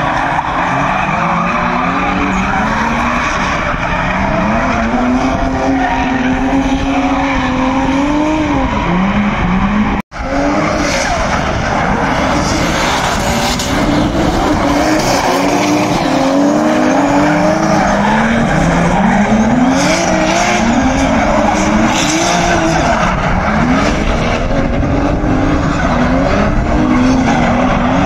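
Drift cars' engines revving up and down again and again as they slide through the corners, over tyres squealing and skidding. The sound breaks off for an instant about a third of the way in.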